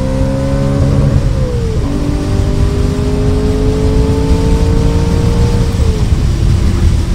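Audi RS4 B7's naturally aspirated 4.2-litre V8, with a stage 1 sport air filter, accelerating hard, heard from inside the cabin. The engine note climbs and drops at an upshift about a second and a half in. It climbs again and drops at a second upshift near the end.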